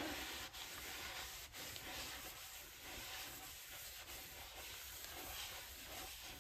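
Rag wiping the inside of a freshly honed cylinder bore in a cast-iron 4.8 LS engine block, clearing away the ATF used as honing oil: faint, soft, irregular rubbing.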